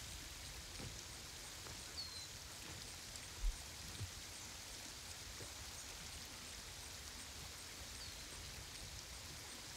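Faint outdoor ambience of a small woodland stream running steadily, with a short high bird chirp twice and a single low thump about three and a half seconds in.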